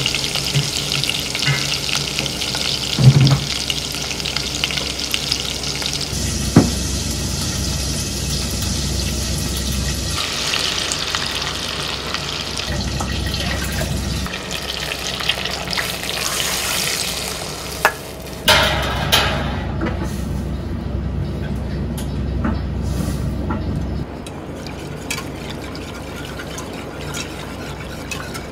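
Miso paste and garlic sizzling as they fry in oil in an aluminium saucepan, with a sharp knock of a utensil against the pan about three seconds in. Later, broth is poured in and a whisk stirs it into the miso.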